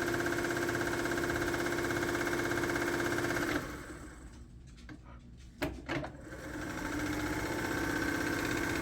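1946 Singer sewing machine running steadily with a motor hum and whine, which stops suddenly about a third of the way in. After a short gap with a couple of clicks it starts again and picks back up to speed.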